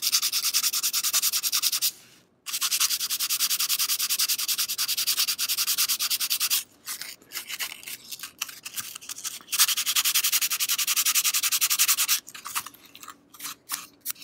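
Sandpaper being rubbed by hand on an old, unsealed wooden razor scale, with fast, even back-and-forth scratching strokes. The strokes pause briefly about two seconds in. Later they come as short, scattered rubs, pick up a steady run again, and break up near the end.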